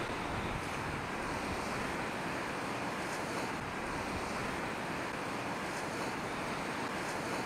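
Steady wash of rough sea and wind, with wind buffeting the microphone.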